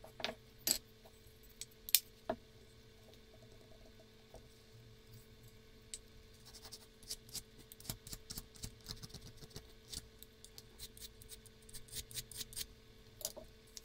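Light clicks and knocks of small wooden plane-body parts being handled and fitted together by hand. There are a few sharper knocks in the first couple of seconds, then a quick run of small clicks from about halfway through, and one more knock near the end.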